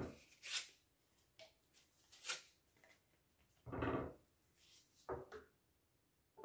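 A few faint, short rustles and taps as dry lasagna sheets are handled and laid into a glass baking dish, spaced a second or two apart, the fullest one just before four seconds in.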